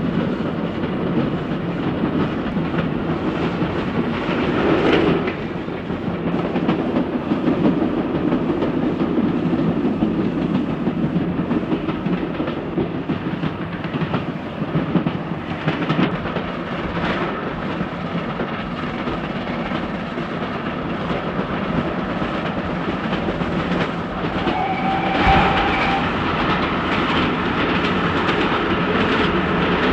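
Steam-hauled train rolling along, its wheels clicking over the rail joints in a steady clickety-clack, with occasional knocks. A short tone sounds for about a second, roughly three-quarters of the way through.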